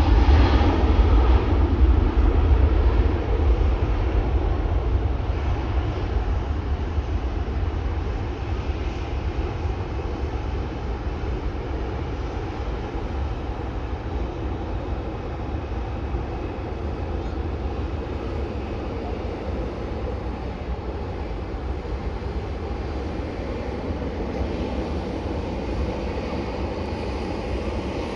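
Jet airliner's engines rumbling, loud at first and fading gradually over about ten seconds as the aircraft moves away, then a steady low rumble.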